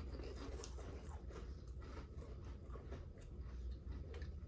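Quiet chewing and small mouth clicks of people eating, over a steady low room hum.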